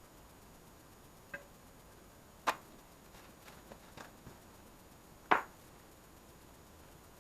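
A few sharp, separate knocks and clicks, the loudest about five seconds in, with fainter ticks between them over a quiet background.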